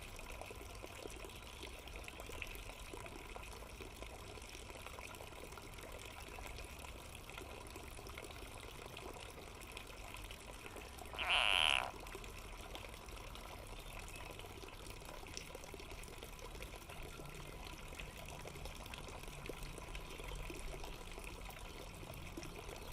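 A frog gives one short, loud, bleating distress scream about halfway through, the cry of a frog seized by a snake. A steady watery hiss runs underneath.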